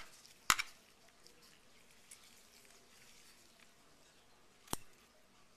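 Metal dissecting scissors snipping through a preserved rat's skin: a sharp click about half a second in, a fainter one around two seconds, and another sharp click near the end.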